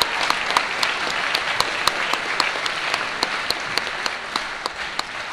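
Audience applauding: dense clapping with a few sharper individual claps standing out. It slowly dies down near the end.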